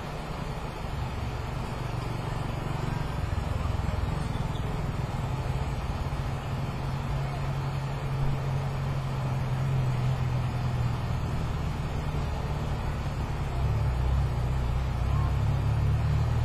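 Low, steady motor rumble with a hum, growing a little louder over the first few seconds.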